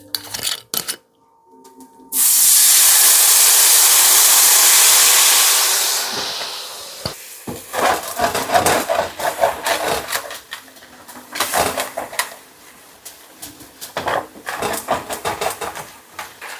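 Vermouth hitting a hot, lightly oiled pan: a sudden loud sizzling hiss about two seconds in that holds for several seconds and then dies down as the liquid deglazes the pan. After it come repeated short scrapes and clicks of a utensil working against the pan.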